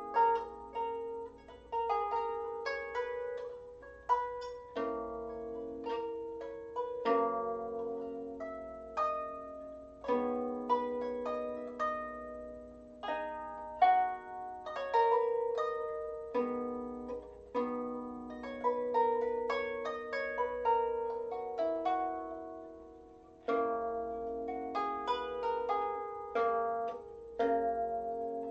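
A small Celtic harp played by hand: a melody of plucked notes over lower notes and chords, each note ringing and fading away.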